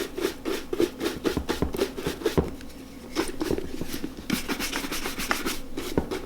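A boot brush scrubbed quickly back and forth over the oil-tanned leather of a Red Wing 3340 Blacksmith boot, about five or six strokes a second. It pauses briefly about two and a half seconds in, then resumes in looser strokes.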